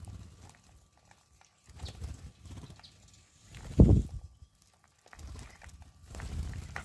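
A flock of wattled starlings fluttering and scuffling around a feeding dish: bursts of low wing-flapping rumble with light ticks, and one loud low thump about four seconds in.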